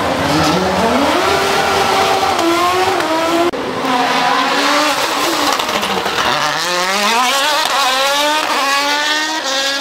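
Rally car engines revving hard through hairpins: the pitch falls as a car slows into the bend, then climbs in steps through the gears under acceleration. The sound changes abruptly a little over three seconds in, where a second car takes over.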